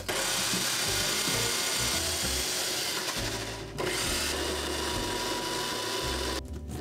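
Electric food processor running in two spells, a long one and a shorter one with a brief stop between, grinding lotus root for the mochi.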